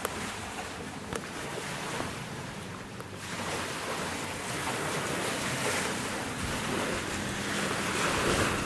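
Wind rushing over the camcorder microphone, a steady hiss that grows louder about three seconds in.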